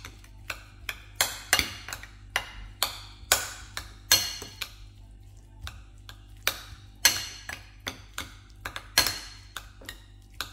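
Metal spoon mashing avocado in a ceramic bowl, tapping and clinking against the bowl in sharp, irregular strikes about two or three a second.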